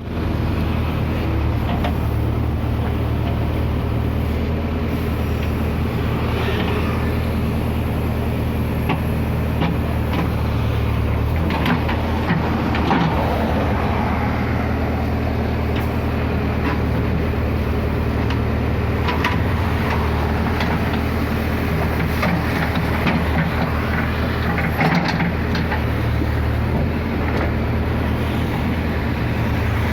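JCB backhoe loader's diesel engine running steadily, with a few short knocks and clanks from the machine at work, the loudest about halfway through.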